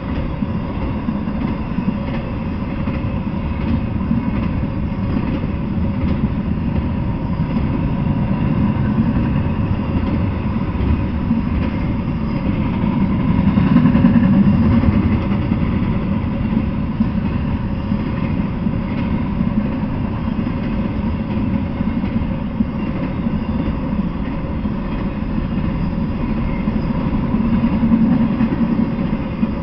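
Intermodal freight train passing, a steady rumble and clatter of wheels on rails that swells about halfway through and again near the end.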